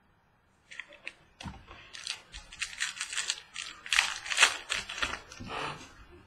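Trading-card pack being opened and its cards handled: a dense run of irregular crinkling, rustling and clicking that starts about a second in and is loudest about four seconds in.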